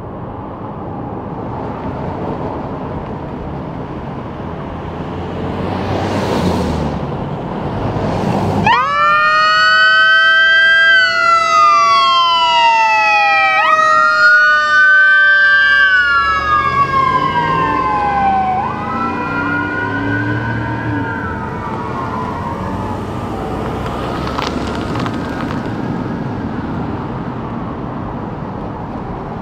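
Traffic and engine noise, then about nine seconds in a fire battalion chief's SUV switches on its dual-tone Xecutor electronic siren: two wailing tones sweep up and down at the same time. The siren is loudest for several seconds and then fades as the vehicle drives away.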